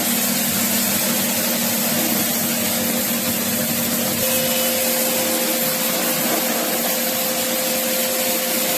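Air-conditioning unit running: a steady rush of fan air with a steady low hum, joined by a higher steady tone about four seconds in.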